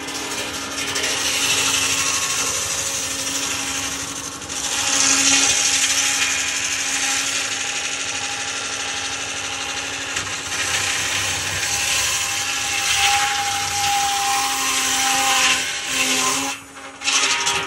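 Sawmill bandsaw ripping a teak board, a steady loud rasping whine of the blade through the wood over the machine's constant hum. Near the end the cutting sound drops away and comes back briefly.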